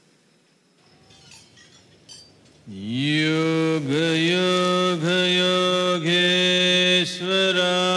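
After a few faint seconds, a deep chanted note starts with an upward slide and is held loud and steady, dipping briefly several times.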